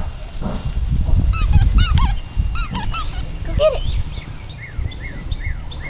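Short, high-pitched arching animal calls in a loose series, giving way to quicker falling chirps at about two a second, over a louder low rumble.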